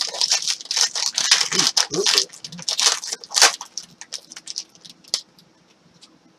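Foil trading-card pack wrapper being torn open and crinkled, a dense crackling rustle for about three and a half seconds, then a few scattered clicks of card handling.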